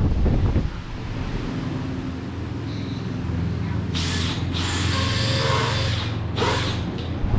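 Power drill running in three short bursts, about four, five and six and a half seconds in, as a wooden bike rack is fastened to a wall. A low knock is heard right at the start.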